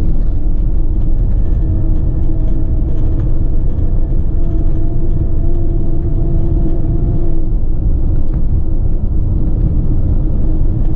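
Ford Transit tipper's diesel engine and road noise heard from inside the cab while driving at speed: a steady low rumble. A humming tone rides on top for several seconds and fades out about seven seconds in.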